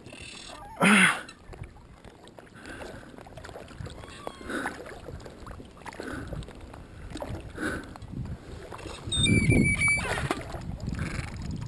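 Water sloshing and splashing around a float tube while a hooked wels catfish is played on a bent spinning rod. There is a sudden loud burst about a second in and a louder stretch of splashing near the end.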